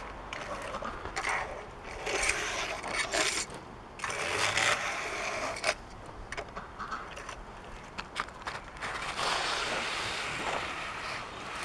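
Snow being scraped and pushed across a tabletop in repeated uneven strokes, each lasting a second or two.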